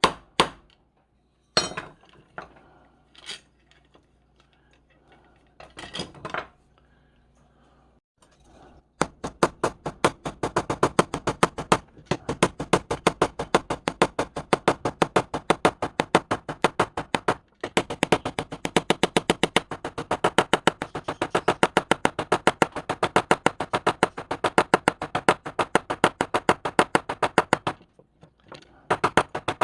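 Small hammer tapping on metal: a few separate knocks at first, then a long, fast, even run of about five light metallic strikes a second. The strikes stop briefly near the end, then start again.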